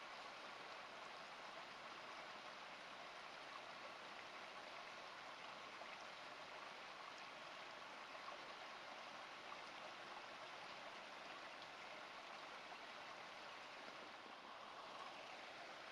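Faint, steady hiss of background noise with no distinct events.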